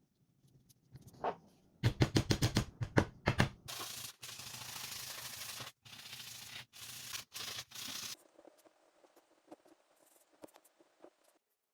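Sanding work on a bush knife's blade. First comes a quick run of about eight loud abrasive strokes, then about four seconds of steady sanding with a few short breaks, which stops suddenly. Faint scratching follows.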